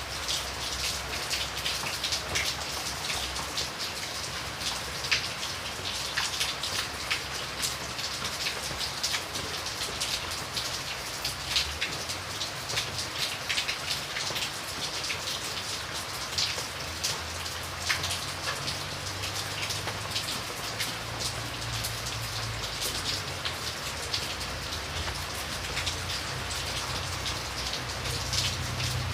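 Steady rain falling, with many separate drops heard hitting a surface over an even hiss, and a faint low hum underneath that comes and goes.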